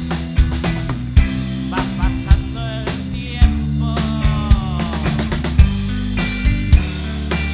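Rock band playing live: drum kit keeping a steady beat under bass and electric guitar, with a high line sliding down in pitch about four seconds in.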